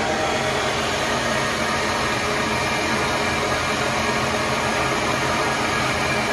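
Cook & Beals honey-extracting spinner running on its belt drive, pretty noisy: a steady whir with faint, steady whining tones, which the owner takes for a dry bearing.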